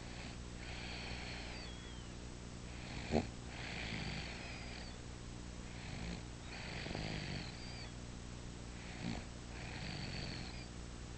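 Snoring in sleep: four slow, airy breaths about three seconds apart, with a brief sharp catch at the start of the second. A steady low hum runs underneath.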